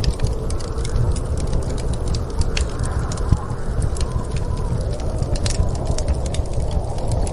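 Wood fire crackling with many irregular sharp pops and ticks, over a steady low rush of storm wind.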